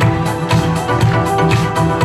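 Music with a steady drum beat, about two beats a second, and sustained instrumental tones, without singing.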